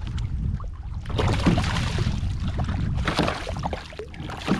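Water splashing and sloshing at a kayak as a hooked bass is played in, in irregular bursts with a sharp knock near the end, over a steady low wind rumble on the microphone.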